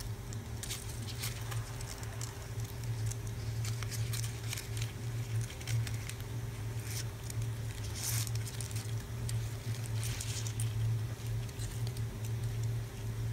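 Land hermit crab eating from a blob of soft food on a palm: faint, irregular little clicks and ticks from its mouthparts and legs. A steady low hum runs underneath.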